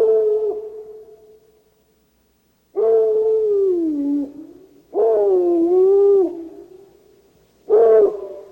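Dog howling, four long howls with an echoing tail: one falls in pitch and another dips and rises again. The last starts near the end.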